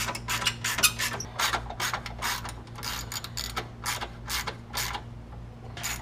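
Hand socket ratchet clicking in quick strokes, about four clicks a second, as a bolt is turned. A steady low hum runs underneath.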